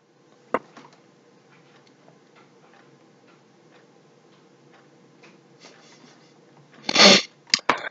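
Quiet room pause with faint, scattered ticks, a sharp click in the first second, and a brief loud rustle about seven seconds in, followed by two small clicks.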